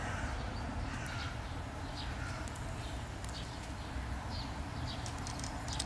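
Outdoor ambience: short high chirps, roughly one a second, over a steady low rumble.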